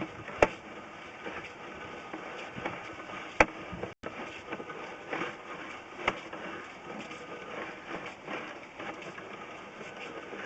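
Sewer inspection camera and its push cable being pulled back through the pipe: a steady mechanical noise with three sharp clicks or knocks, the loudest about three and a half seconds in.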